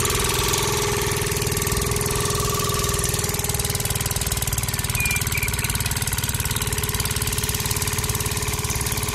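Small engine running steadily with a fast, even chugging.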